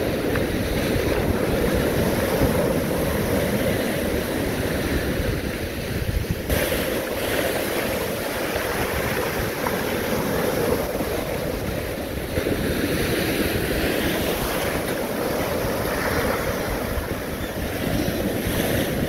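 Ocean surf breaking and washing up the beach, with wind buffeting the microphone in a steady rumble. The hiss of the water brightens suddenly about six and a half seconds in.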